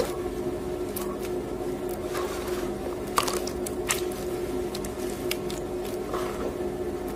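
Wet gym chalk paste squished and squeezed between bare hands in a bowl of water, with scattered wet clicks and splats; one sharp click about three seconds in is the loudest. A washing machine hums steadily underneath.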